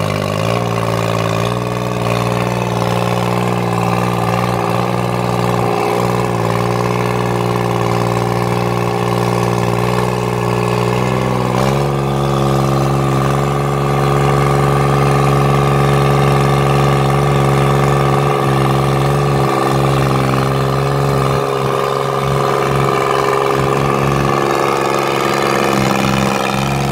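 Kubota B1550 compact tractor's diesel engine running steadily while it works the front-end loader through gravel. The engine note steps up and grows a little louder about 12 seconds in.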